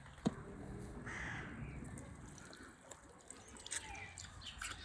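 Liquid poured from a glass jug into a frosted glass mug, a short splashing stream lasting about a second, with a few light clicks of glass near the end.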